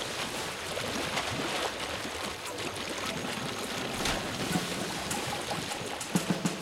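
Water splashing and churning as a mass of Nile crocodiles thrash and tear at a carcass, with a heavier splash about four seconds in.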